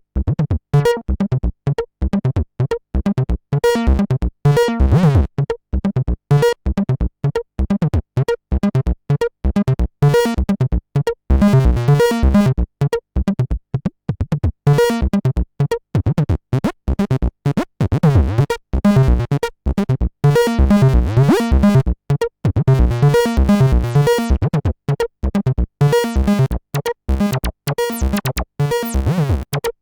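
Behringer TD-3-MO, a TB-303-style bass synthesizer, playing a fast looping sequence of short staccato notes from an 8-step Eurorack sequencer. Its tone sweeps and changes as modulation moves the filter and pitch, most clearly in the middle of the run.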